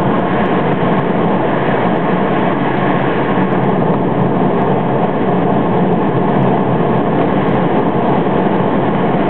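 Steady road and wind noise in the cabin of a BMW 335 twin-turbo convertible driving at speed, tyres rumbling on asphalt without a break.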